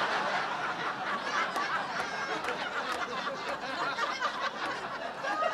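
Comedy club audience laughing: a sustained wave of many voices laughing together after a punchline.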